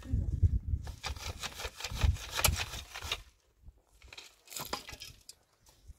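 Wood being worked by hand: a run of irregular scraping and cracking for about three seconds, then a few short scrapes near the end.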